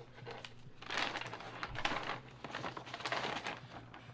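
Paper and plastic shipping packaging being handled, rustling and crinkling in three short bursts about a second apart.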